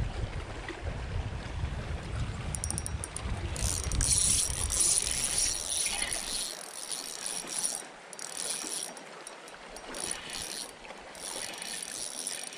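Spinning reel being cranked in spells, its gears whirring with a high, thin tone, over a low rumble that stops about halfway through.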